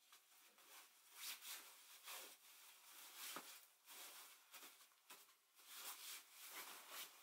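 Faint rustling and soft handling noises: a string of short, irregular scuffs and taps.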